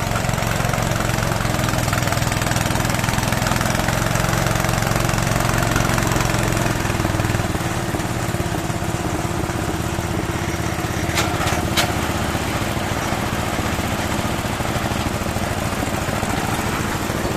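Small water-pump engine running steadily, driving a well-drilling rig through a car gearbox. Its low hum thins about halfway through, and two short clicks come about two-thirds of the way in.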